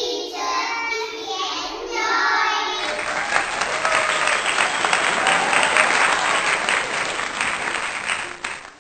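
Children's voices answering together, then a burst of clapping applause starting about three seconds in and fading out near the end.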